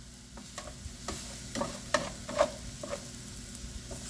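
Metal spatula scraping and clinking against an aluminium sheet pan as roasted vegetables are pushed around, a handful of short scrapes and knocks, over the faint steady sizzle of chicken frying in a cast-iron grill pan.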